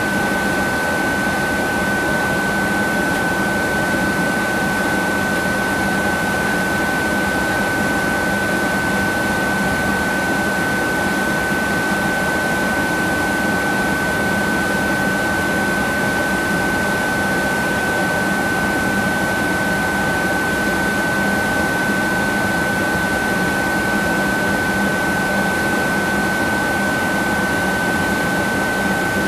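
Steady cabin noise of a Boeing 767-300ER in cruise, a constant rush of airflow and engine noise with a thin high tone held throughout.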